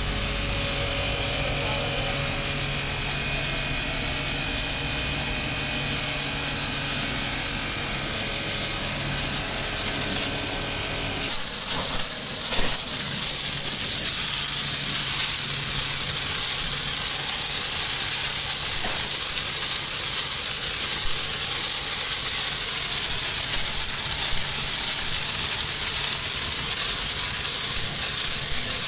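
Electric high-pressure washer running, its water jet spraying with a loud steady hiss over the hum of its motor. About eleven seconds in, the motor hum drops away and mostly the hiss of the spray remains.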